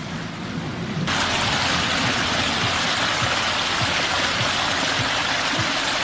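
Water gushing from a concrete outfall pipe and splashing onto rocks: a steady, loud rushing that starts abruptly about a second in, after a softer stretch of ambient noise.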